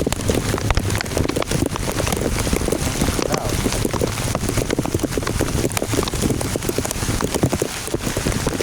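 Heavy storm rain falling and striking a hard surface: a steady, dense patter of drops.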